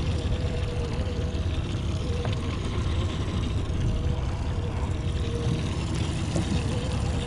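Honda outboard motor idling steadily: a low rumble with a steady hum over it.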